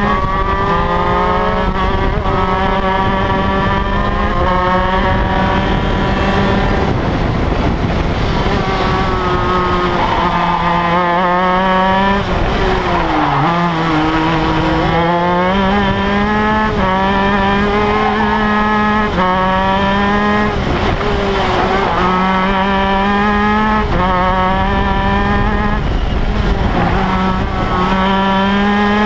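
Shifter kart's 125cc two-stroke engine at racing revs, heard onboard. Its pitch climbs steadily and then drops sharply at each gear change, with a deep dip about 13 seconds in as it slows into a corner and then pulls away again.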